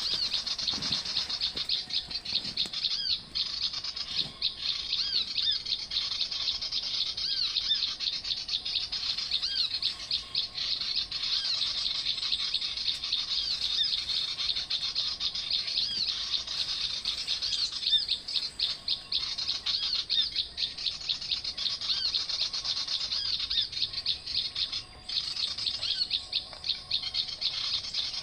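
Dense, continuous high chirping and twittering of many small birds, a rapid stream of short repeated notes.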